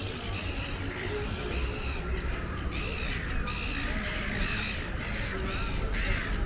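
Birds calling with short, arched notes repeated several times a second, over a low steady rumble.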